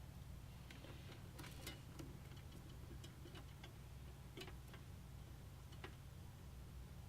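Faint, irregular light clicks and ticks from small parts being handled, over a steady low electrical hum.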